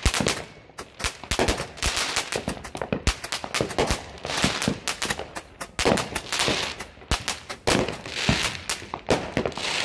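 Many firecrackers and fireworks going off at once: a dense, irregular run of sharp cracks and pops, overlapping like a machine gun, with bursts of crackling hiss in between.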